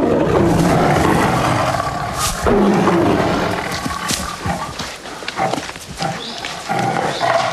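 Two Bengal tigresses fighting, roaring and snarling. It starts suddenly and loud, surges again about two and a half seconds in, then breaks into shorter snarls.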